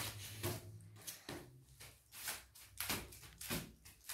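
Hands and sneakers thumping on a woven mat as a person crawls fast on all fours, a series of irregular thumps roughly two a second.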